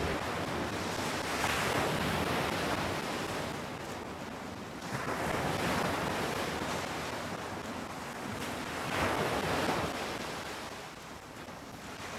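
Small waves breaking and washing up a sandy beach, the hiss of surf swelling three times, about every four seconds.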